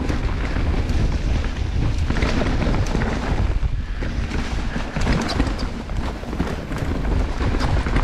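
Wind rushing over the camera microphone, with the rattle and frequent clicks and knocks of a Commencal Meta AM mountain bike riding fast over rough trail; it eases briefly about four seconds in.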